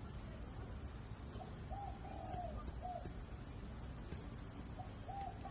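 A dove cooing: a phrase of a few coos, a short note, a longer drawn-out one and a short one, heard once in the middle and starting again near the end.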